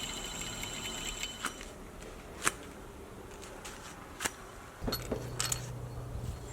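A few light metallic clicks and clinks as car parts and a bolt are handled, one at a time with pauses between. A faint high steady whine runs through the first second and a half, and a low hum starts near the end.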